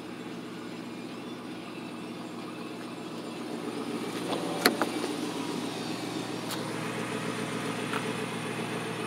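Car engine idling steadily, with a single sharp click about four and a half seconds in.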